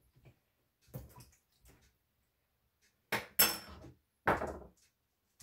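A metal spoon stirring and tapping in a plastic bowl of broccoli soaking in water, with light clicks, then two louder kitchen-utensil clatters about three and four seconds in.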